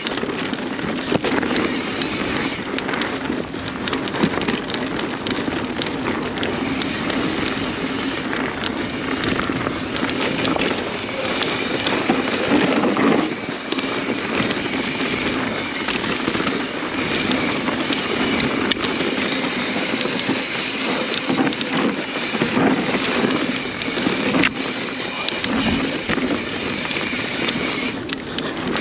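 Mountain bike ridden fast down a dirt trail: a steady rush of tyre and wind noise with crackling clatter from the bike over rough ground.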